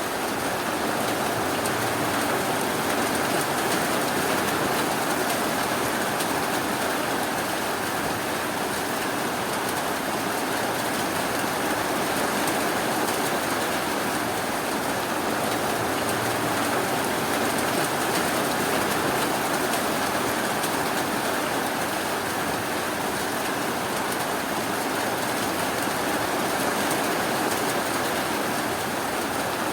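Steady, even rainfall, a continuous hiss of rain on surfaces.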